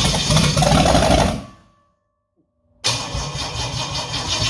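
Rebuilt Holden 253 4.2 L V8 running on an engine stand, straight out of the exhaust with no mufflers. The sound fades away about a second and a half in, there is about a second of dead silence, and then the engine is heard running again, starting abruptly.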